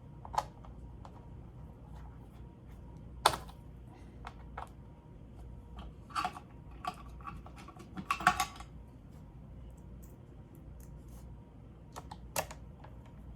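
Scattered small sharp clicks and taps of screws and parts being handled on a laptop's plastic case during reassembly, loudest about three seconds in and in a quick cluster around eight seconds.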